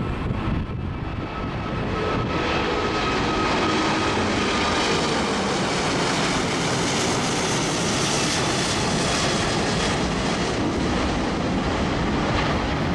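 Four-engined Airbus A380 climbing out after takeoff at full thrust, its Rolls-Royce Trent 900 turbofans making a steady dense jet noise that builds about two seconds in and holds. Faint whining tones in it slowly drop in pitch as the aircraft passes overhead.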